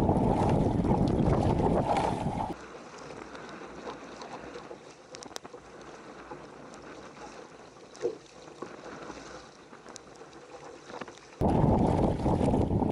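Strong wind buffeting the microphone on a kayak at sea, a loud rumbling blast. It drops abruptly about two and a half seconds in to a much quieter hiss with a few faint ticks, then comes back just as abruptly near the end.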